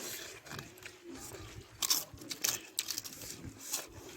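Close-miked eating: chewing, with a few sharp crunches. The loudest crunches come about two seconds in and again near the end.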